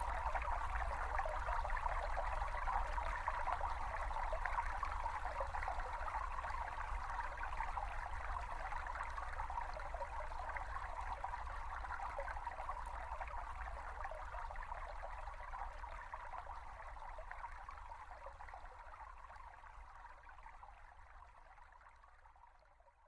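A small brook babbling steadily, with a low rumble underneath, fading out gradually over the last ten seconds or so.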